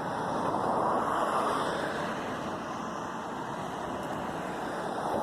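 Road traffic going by: a steady rushing noise that swells about a second in and again near the end.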